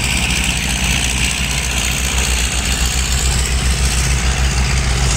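Diesel dump truck engine running steadily at a low, even speed.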